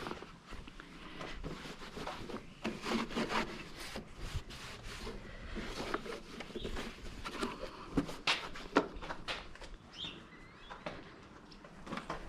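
Irregular scraping, rubbing and light clicking of things being handled, with no engine running.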